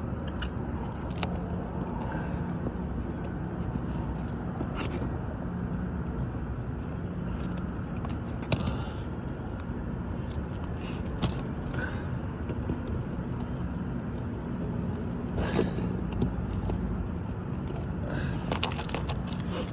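Scattered scrapes, clicks and creaks of a hand tool prying roofing nails out of asphalt shingles, heard as separate short sounds every few seconds. Under them is a steady low background rumble.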